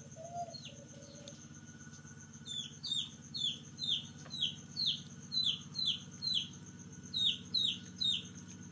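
A bird chirping: a run of short, high, falling chirps, about two or three a second, starting a couple of seconds in.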